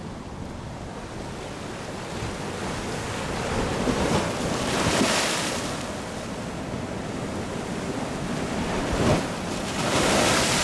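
Sea waves surging over a rocky shore and into a blowhole, the rushing water swelling about four seconds in and again near the end. Near the end the blowhole sends up a jet of spray with a thud and a hiss.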